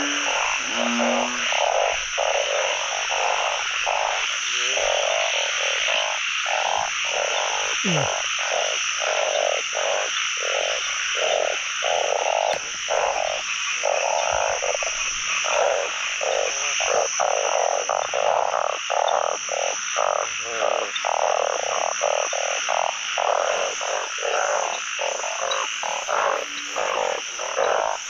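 Dense chorus of many narrow-mouthed frogs (อึ่ง) calling together from a pond, with overlapping croaks repeating two to three times a second over a steady high drone.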